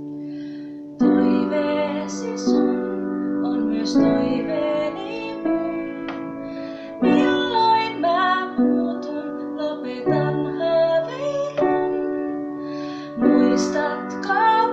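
A woman singing, accompanying herself on an electric keyboard that strikes a new chord about every three seconds.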